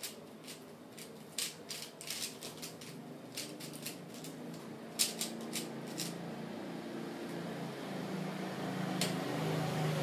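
A 3x3 Rubik's cube being turned quickly by hand, a run of sharp plastic clicks and clatters from the layers snapping round. The turning thins out after about six seconds, with a single click near nine seconds, while a low steady hum rises in the background toward the end.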